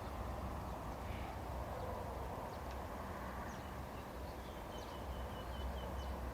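Steady outdoor background with a low rumble, and a bird calling: a few thin high notes, then a quick run of about six short chirps in the second half.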